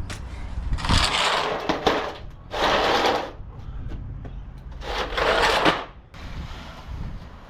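Rustling and scraping of yard debris being handled and moved, in three short bursts a couple of seconds apart.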